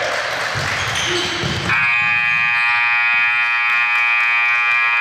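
Basketball gym scoreboard buzzer sounding one long, steady blast of about three and a half seconds, starting a little under two seconds in, after a moment of crowd noise.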